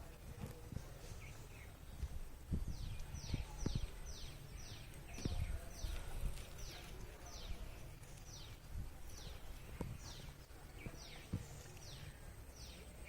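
Squirrel chirping: a run of short, sharp high chirps, each falling in pitch, repeated about twice a second with brief pauses, starting a couple of seconds in. Some low thumps sound underneath.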